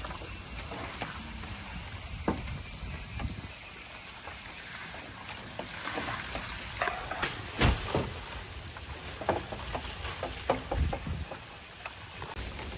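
Irregular splashing and dripping water with scattered knocks, one louder knock a little past the middle.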